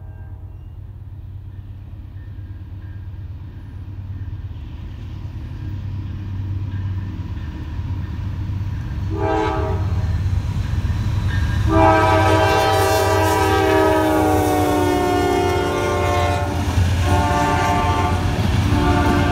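Two GE Dash 9-44CW diesel locomotives leading a freight train, their low rumble growing steadily louder as they approach. The lead unit's multi-chime air horn sounds a short blast about nine seconds in, then a long blast of about five seconds, then shorter blasts near the end.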